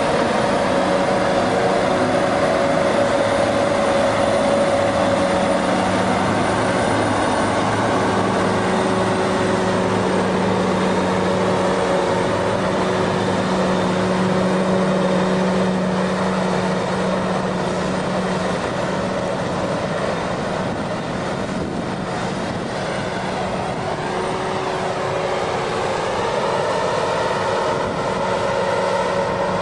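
Heavy farm machine's diesel engine running steadily, its note holding with small shifts in pitch.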